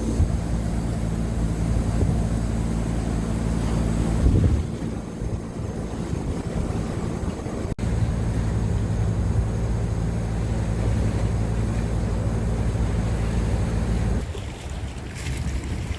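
A boat's engine drones steadily under wind and water noise. The drone drops out about four seconds in, returns after an abrupt break, and stops near the end, leaving only the wind and water.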